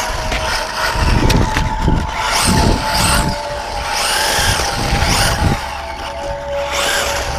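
Traxxas 1/16 Revo VXL brushless RC truck driving in several short bursts, its motor whine rising and falling with each burst of throttle. Its differential has been shimmed to stop it skipping.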